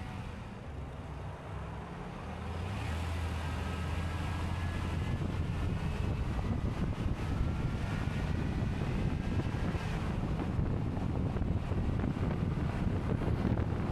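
A vehicle driving along at speed: steady engine and road noise, with wind buffeting the microphone. The noise gets louder about three seconds in and then holds steady.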